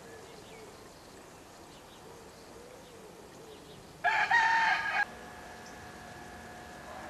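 A single loud pitched animal call about four seconds in, lasting about a second and cut off abruptly. Before it there is only a faint outdoor background; after it, faint steady tones.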